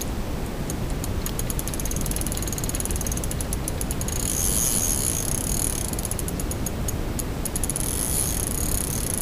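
Fishing reel's drag ratchet clicking as a hooked fish is played on a bent rod: fast clicks in bursts from about a second in, running together into a quick buzz around the middle and again near the end.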